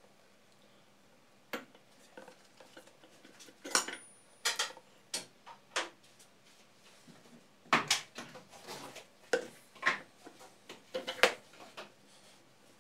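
Irregular sharp clicks and knocks of plywood discs being handled, glued and pressed down over a steel spindle, with a glue bottle set down on the table. The loudest knocks come about eight and eleven seconds in.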